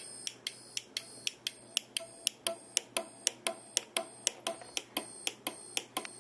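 5-volt reed relay, wired to an alarm clock's speaker leads, clicking about four times a second as the sounding alarm pulses it on and off: a test showing the relay is switching.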